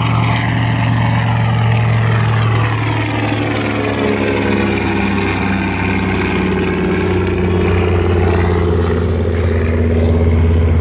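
Grumman TBM Avenger's Wright R-2600 radial engine at takeoff power as the plane climbs out and flies past, a steady drone whose pitch drops from about three seconds in as it goes by and away.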